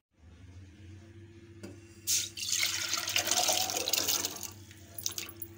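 Soaked chickpeas and their soaking water poured from a steel pot into a pressure cooker: a single knock of the pot, then about two seconds of splashing pour that tails off.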